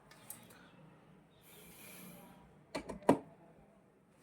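A soft hiss lasting about a second, then a quick cluster of sharp knocks about three seconds in.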